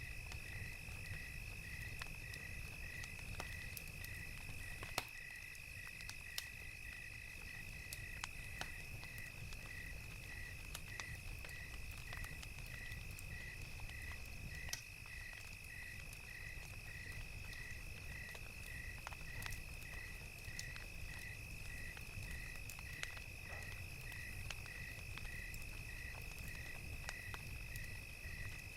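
Crickets chirping in an even, pulsing rhythm over a steady high insect drone, with the scattered sharp pops and crackles of a wood fire.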